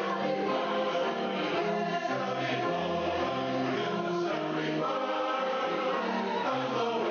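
A choir singing as background music.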